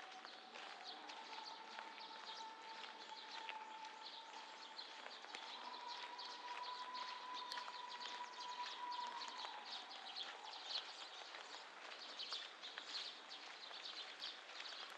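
Light rain pattering and dripping, with footsteps on a wet country road. A faint steady tone runs underneath, rising slightly in pitch and fading out about ten seconds in.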